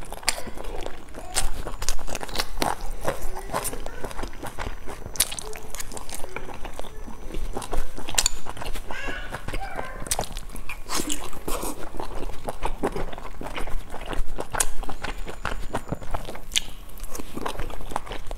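Chewing and biting as boiled dumplings are eaten, with many sharp, irregular wet smacks and clicks of the mouth throughout.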